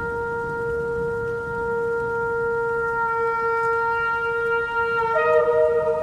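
Shofar blast: one long, steady held note. A higher note breaks in about five seconds in.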